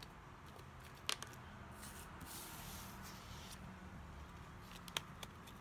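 Faint rustling of paper die-cut embellishments being slid into a pen pouch, with two light clicks, about a second in and near the end.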